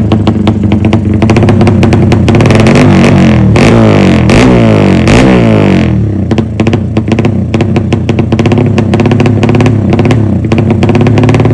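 Yamaha V-ixion's modified single-cylinder four-stroke engine running with a sharp, pulsing exhaust, blipped up and down several times about two to six seconds in, then back to a steady idle.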